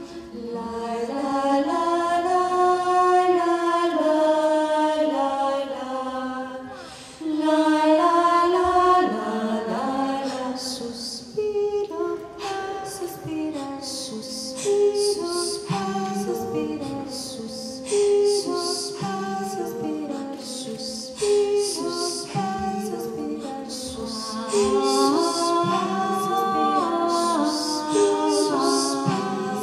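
Female vocal quartet singing a cappella in close harmony on long held notes. After about ten seconds it moves into a rhythmic passage of short notes punctuated by sharp hissing accents.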